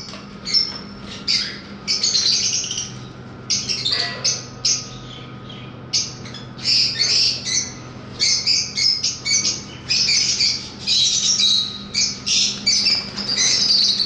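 A flock of lovebirds chattering in rapid, shrill squawks and chirps, coming in bursts, with a quieter stretch about four to six seconds in. A faint steady hum runs underneath.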